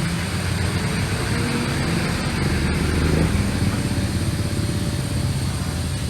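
Electric polishing machine running with a steady low hum as the exhaust pipe is buffed to a shine.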